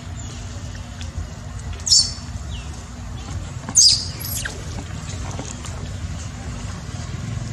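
Two short, high-pitched squeals from a macaque, about two seconds apart, over a steady low rumble.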